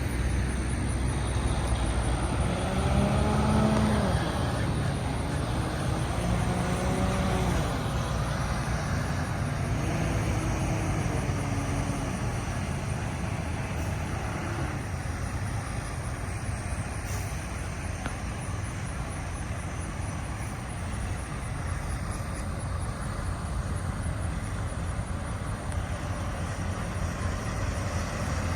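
Road traffic: a steady low rumble of vehicle engines and tyres, easing off slightly in the second half.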